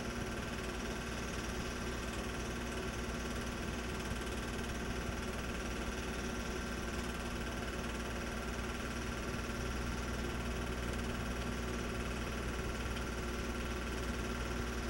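Home movie projector running: a steady mechanical whirr with a constant hum and hiss, unchanging throughout.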